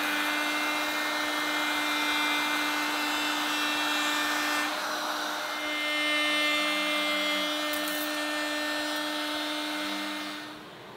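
Table-mounted router running with a steady whine while its bearing-guided profile bit cuts a wooden hammer-handle blank fed past it in a jig, profiling the handle. The sound dips briefly about five seconds in and stops near the end as the cut finishes.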